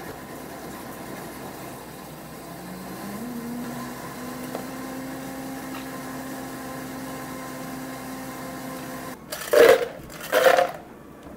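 Ice cubes tipped twice into a plastic blender jar, about a second apart near the end, each a short clattering rush. Before that a steady low hum runs underneath.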